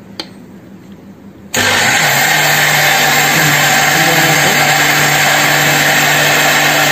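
An electric mixer grinder (mixie) switched on about a second and a half in, its motor running steadily at high speed as the blades churn soaked rice and water in a steel jar: the first quick coarse pass of appam batter. A light click comes just before it starts.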